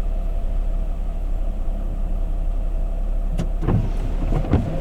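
Van engine idling, heard from inside the cab: a steady low hum with a faint steady tone above it. A click comes about three and a half seconds in, followed by a few short knocks or rustles near the end.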